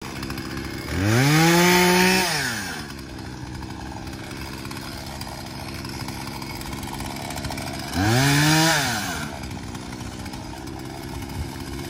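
Chainsaw idling, revved up twice for about a second and a half each time, its pitch climbing sharply and then dropping back to idle.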